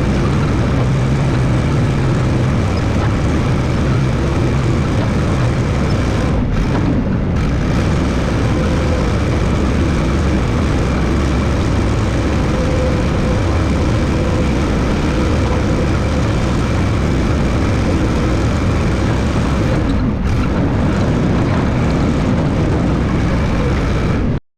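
A 1969 Massey Ferguson 300 crawler dozer's engine running steadily at work grading dirt. It cuts off suddenly near the end.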